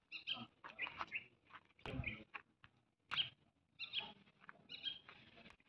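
Faint, short bird chirps repeating on and off, with a couple of soft knocks about two and three seconds in.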